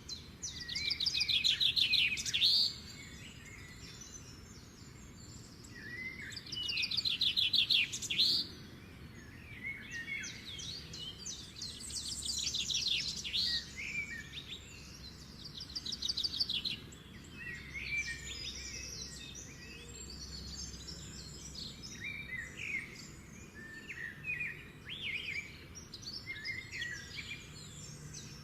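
Songbirds singing: loud rapid trilled phrases twice in the first eight seconds or so, then a run of shorter chirps and calls, over a faint steady background hum.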